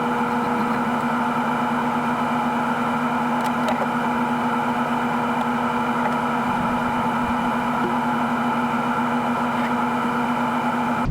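Combine harvester's engine and machinery running steadily, heard outside the cab: a steady noise with several held tones.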